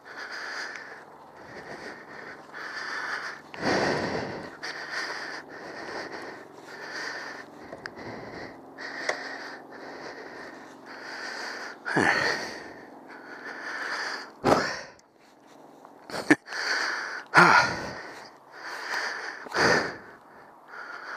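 A man panting hard and out of breath after heavy exertion, breathing in and out about once a second close to the microphone. A few breaths in the second half are louder and sharper.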